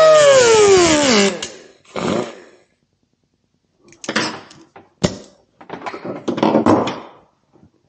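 Hand work on electric-unicycle pedal parts: a loud squeak that rises briefly and falls in pitch over about a second and a half. It is followed by several short knocks, a sharp click and scraping rattles of the parts being handled.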